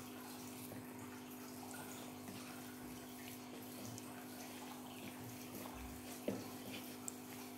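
Faint, soft squishing of a hand mixing mashed potato with grated paneer and cheese in a bowl, over a steady low hum, with a small knock about six seconds in.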